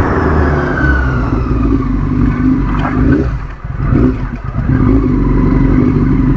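Yamaha R6 sport bike's inline-four engine running under way, with wind noise; the engine sound drops away briefly about halfway through as the throttle is eased off, then picks back up.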